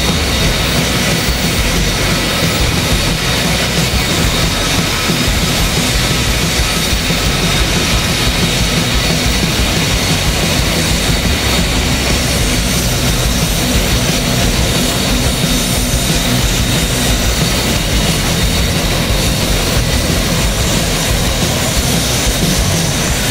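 Jet engine running steadily on the ground: a continuous high turbine whine over a low rumble.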